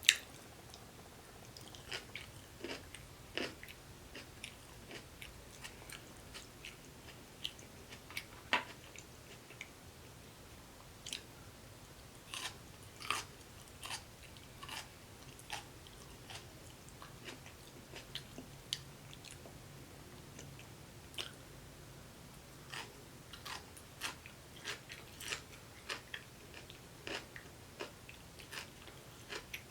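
Close-miked chewing of kimchi: quiet, irregular crunches and sharp mouth clicks.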